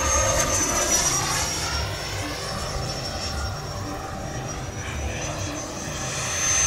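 FMS Super Scorpion 90mm electric ducted-fan jet in flight: a steady high-pitched fan whine that eases down slightly in pitch after the first second and climbs again near the end, over a low, uneven rumble.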